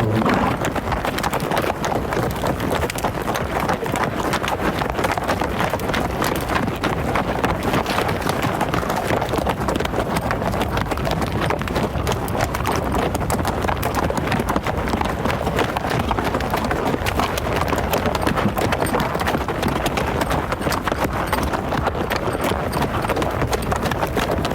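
Hooves of a running herd clattering rapidly and without a break.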